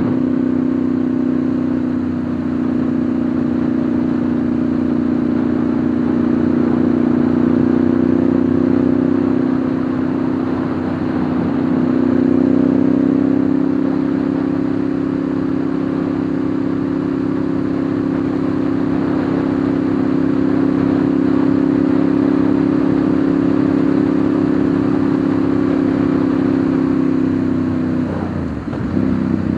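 Ducati Monster 1100's air-cooled L-twin engine running steadily at cruising speed, heard from the rider's seat. The engine note swells slightly partway through and dips briefly near the end.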